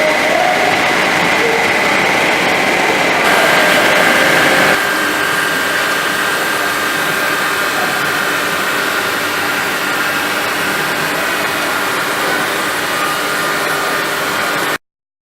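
CNC machine cutting an edge, its spindle giving a steady high whine over the grinding noise of the cut. It gets a little louder for a second or so about three seconds in, then cuts off abruptly near the end.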